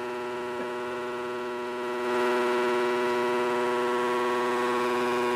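Four-stroke motocross bike engine, a Yamaha YZ250F, held wide open at one steady high pitch and getting louder about two seconds in: the throttle twisted as hard as it will go, trying to blow it up.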